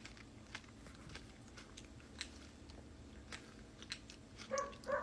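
Faint, scattered wet clicks of a person eating the gooey pulp of a kiwano (horned melon), with a short voice sound near the end.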